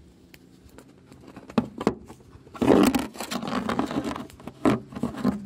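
Camera handling noise: bumps, scrapes and rubbing as the camera is picked up and turned around in the hand. It starts about a second and a half in, with the loudest, densest burst about halfway and scattered knocks after it.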